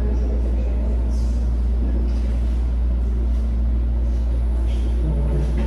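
Handheld exploration footage playing through a TV speaker: a steady low rumble throughout, with a faint voice-like sound about five seconds in.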